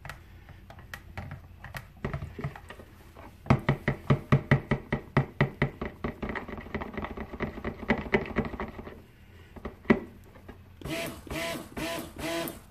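Stick blender mixing fragrance oil into cold process soap batter in a ceramic bowl, run in rapid short pulses, about five a second, for several seconds, then a few short buzzing bursts near the end.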